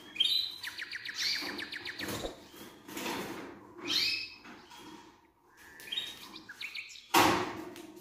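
Caged canaries chirping, a few short trilled calls in three spells, high and rapid. A short loud noise near the end.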